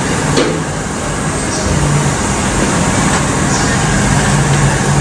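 Perodua Myvi petrol engine idling with the bonnet open: a steady low hum over general workshop noise.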